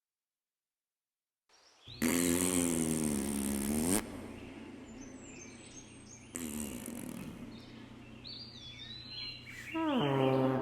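A loud, drawn-out trumpet-like groaning tone with many overtones lasts about two seconds, its pitch sagging and then bending upward as it stops. It is followed by fainter echoes of the tone and small birds chirping. Near the end the tone comes back, gliding down and then holding steady.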